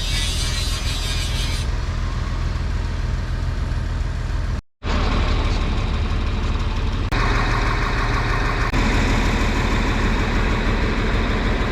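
A motor vehicle engine running steadily. It drops out for a moment just under five seconds in, and the sound changes character about seven seconds in.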